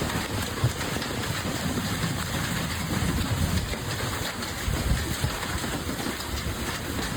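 Heavy hailstorm: a dense, steady clatter of hailstones and rain pounding down, with a few sharper, louder hits standing out.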